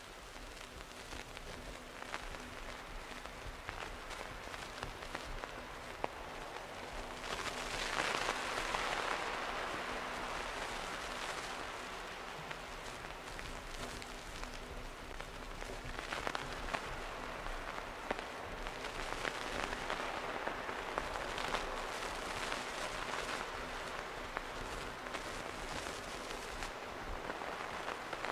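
A noise layer from an AKAI Force groovebox, a rain-like hiss scattered with small clicks and crackles, used as the background texture of a dub techno track. It swells louder about eight seconds in and again from about sixteen seconds.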